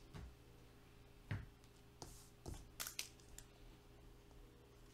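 Near silence with a few faint taps and rustles, about four, from trading cards being handled and set down on a tabletop mat.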